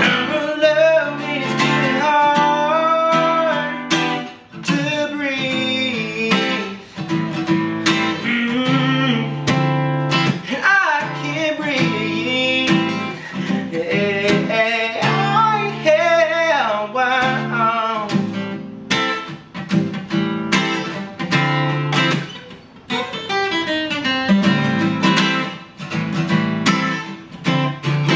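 A man singing a song while strumming an acoustic guitar, with short breaks between sung phrases.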